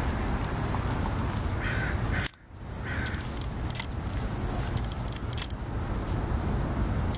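Two short, harsh bird calls about two and three seconds in, over a steady low outdoor rumble; the sound cuts out abruptly for a moment between the calls.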